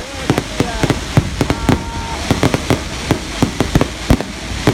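Fireworks going off in a rapid, irregular string of sharp bangs and pops.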